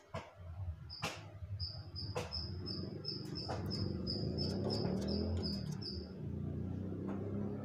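Cucak wilis (rengganis) leafbird calling: a rapid string of short, high, identical chip notes, about three a second, that stops about six seconds in. A few sharp clicks and a steady low rumble run underneath.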